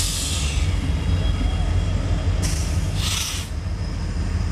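Diesel freight locomotive passing close by: a loud, steady low engine rumble, with short bursts of hiss at the start and again about two and a half seconds in.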